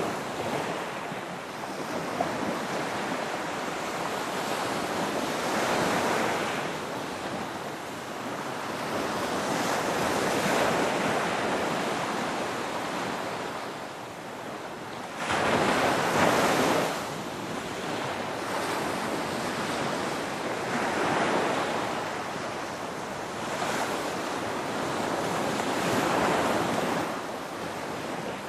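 Ocean waves breaking: a continuous wash of surf that swells and fades every few seconds. One louder wave crashes in suddenly about halfway through.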